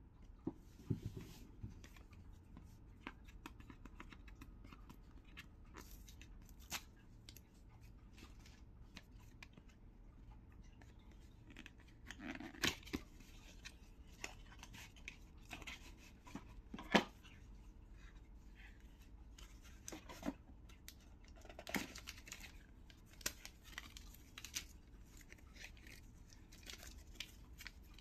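Small cardboard box and its folded paper inner sleeve being opened and unfolded by hand: scattered soft rustles and crinkles, with a few louder, sharp clicks around the middle.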